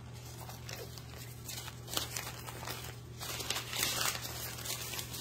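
Thin plastic packaging crinkling and a nylon laundry bag rustling as it is picked up and unfolded by hand, the rustling getting busier and louder in the second half. A steady low hum runs underneath.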